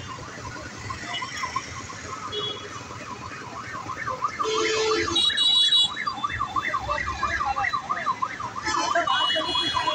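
Busy road-junction traffic. Vehicle horns blast loudest from about four and a half to six seconds in and again near the end. Under them runs a continuous fast warbling chirp, several pitch sweeps a second, like an alarm.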